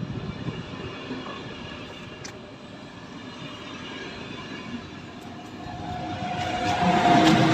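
Train running through a station, its noise swelling over the last two seconds as it comes closer, with a steady tone rising above the rumble.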